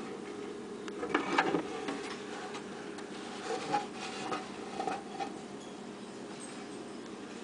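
Scattered soft rustles and taps from the camera being handled, over a steady low hum.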